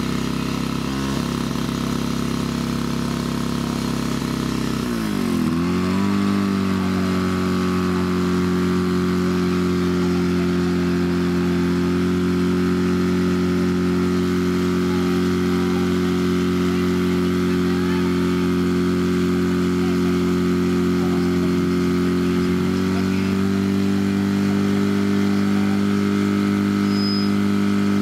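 Portable fire pump's petrol engine running hard and steady as it pumps water out to the hose lines. About five seconds in its pitch dips sharply and then climbs back to a higher steady speed, and near the end it rises a little more.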